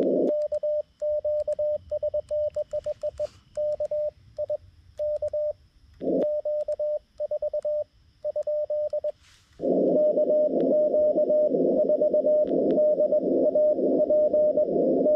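Xiegu G90 transceiver's CW sidetone: a single clean pitch keyed in Morse dots and dashes as the operator sends with a paddle key, silent between elements while transmitting. About two-thirds of the way in it gives way to receiver audio, band hiss through a narrow CW filter with a faint Morse signal in it.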